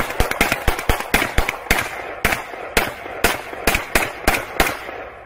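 Rapid small-arms gunfire: a run of sharp shots in an irregular rhythm, about four a second.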